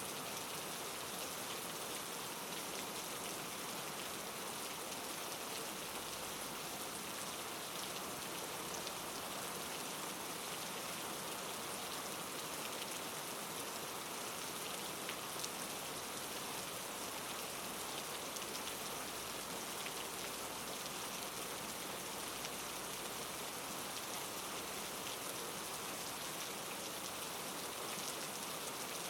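Steady rain falling, an even patter of drops with a few faint sharper drop ticks.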